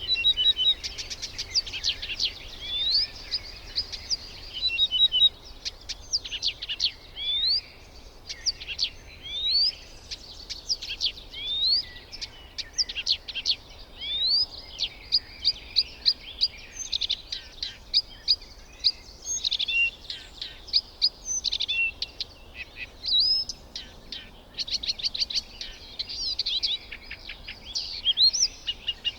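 Birds chirping and calling, a dense run of short, high, overlapping calls, many of them quick rising notes.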